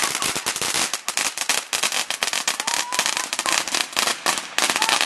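Fireworks fixed to the back of a homemade go-kart crackling, a dense rapid run of sharp pops that goes on without a break.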